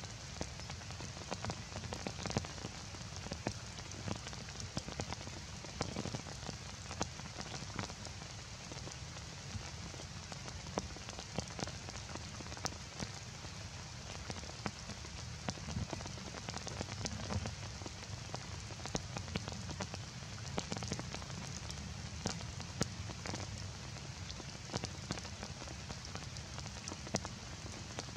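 Heavy rain falling steadily, with many sharp drop impacts spattering on nearby surfaces.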